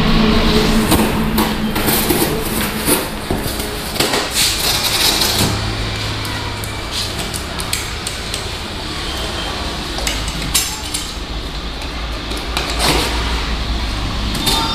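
Irregular knocks and clatter of hard objects being handled, with a steady low hum starting about five seconds in.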